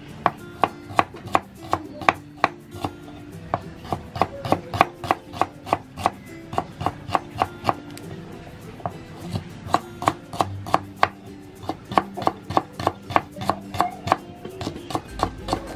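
A knife slicing shallots on a wooden chopping board: a steady run of sharp knocks, about three a second, broken by a few short pauses.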